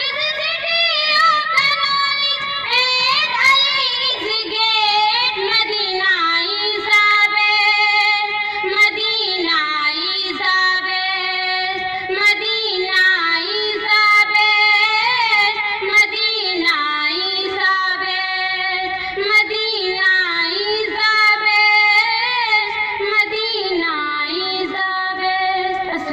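A child singing a naat, a devotional poem in praise of the Prophet, as a solo voice into a microphone, in a high melody with many wavering, ornamented turns.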